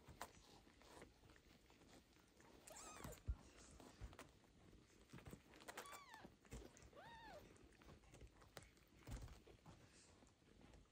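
Young kitten mewing three times, short high calls that rise and fall in pitch, among soft rustling and a few light thumps.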